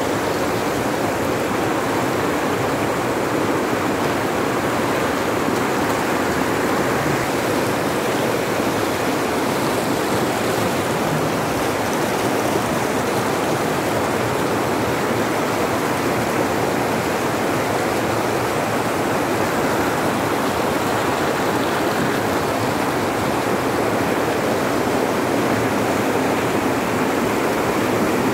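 Steady rush of river rapids: white water churning over rocks around a boat running through them.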